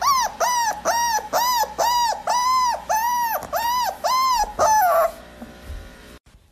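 A dog whining in a run of high, arching cries, about two a second, each rising and falling in pitch; they stop about five seconds in.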